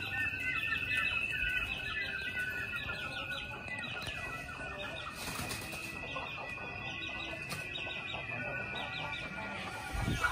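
Birds chirping in quick repeated calls over a steady high-pitched tone that stops shortly before the end, with a short low thump near the end.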